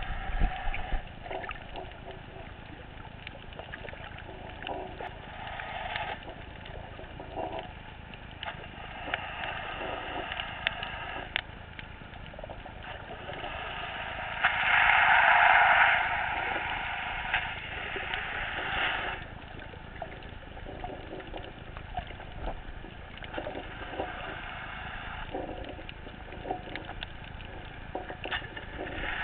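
Muffled underwater sound through a camera housing: a steady rush of water with scattered small clicks and crackles. A louder rushing noise swells up about halfway through and lasts a second and a half.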